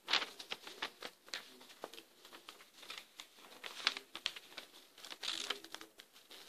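A sheet of paper being handled and folded by hand: irregular rustling and crinkling with short, sharp creasing sounds.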